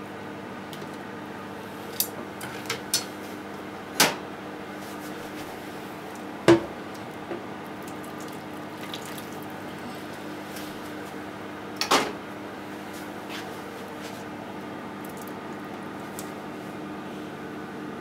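A few sharp metallic clicks and knocks as the wire strainer and chopsticks touch the stainless steel sink while the fried tofu is handled, the loudest about six and a half seconds in and another near twelve seconds. Under them a steady low hum runs throughout.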